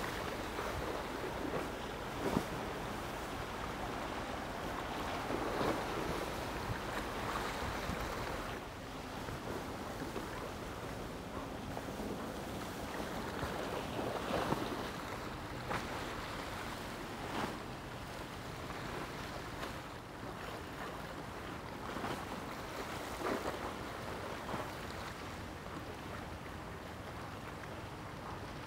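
Waterfront ambience: wind buffeting the microphone over lapping harbour water, a steady rushing noise broken by short gusts. The level drops slightly about eight seconds in.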